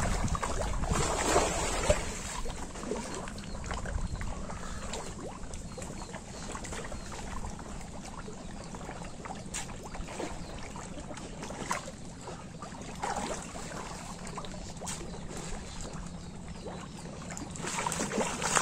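Pond water splashing and trickling as a bamboo basket trap is dipped and moved through the shallows, with scattered small splashes.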